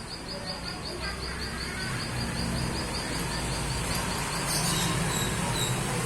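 An insect's high, even chirping, about seven pulses a second, which stops around halfway through, over a low engine rumble that grows steadily louder. A few short bird chirps come near the end.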